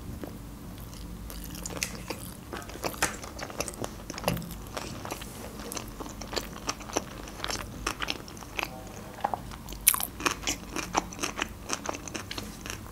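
A person chewing a mouthful of sushi roll, with a steady run of irregular small clicks and smacks of the mouth.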